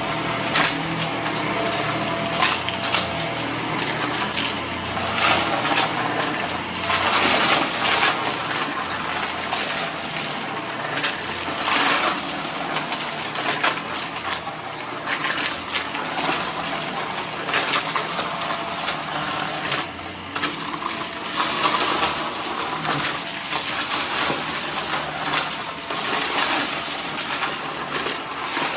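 Vacuum cleaner sucking up a mess of dry debris, the pieces rattling and crackling continuously as they are pulled in.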